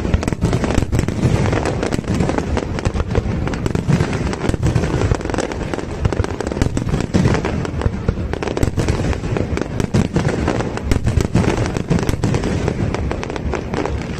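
Aerial fireworks display: shells bursting overhead in a dense, continuous string of sharp bangs, several a second, with no let-up.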